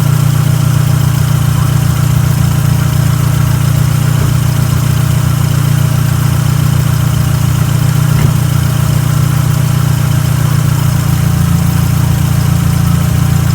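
Car engine idling steadily with its freshly tightened accessory belt running quietly, with no squeal: the belt squeal came from the belt having been loose.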